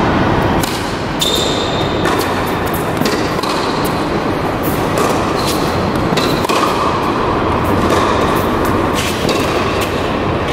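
Tennis ball struck by rackets and bouncing on a hard court, starting with a serve about a second in and running on as a rally. The hits come as sharp, irregular knocks over a steady background noise.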